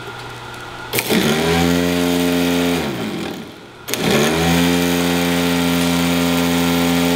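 Lucas M35G inertia (Bendix) starter motor spinning free on a bench test, twice. Each run starts with a sharp snap as the power lead makes contact, then a whine that rises quickly to a steady pitch. The first run lasts about two seconds and falls away when power is cut; the second starts about four seconds in and runs longer. The freshly re-brushed motor spins freely, drawing about 40 amps.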